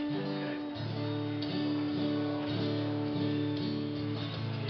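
Live acoustic and electric guitars noodling between songs, picking notes and chords over a long held note that stops near the end.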